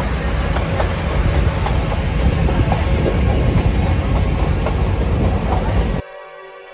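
Nilgiri Mountain Railway toy train running on the rails, a loud rumble with scattered clicks of wheels over rail joints. It cuts off abruptly about six seconds in, and soft background music takes over.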